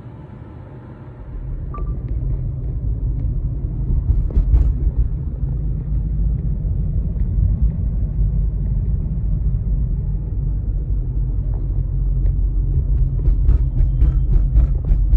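Steady low rumble of a car being driven, heard from inside the cabin: engine and road noise. It grows louder about a second and a half in, and a few light clicks come near the end.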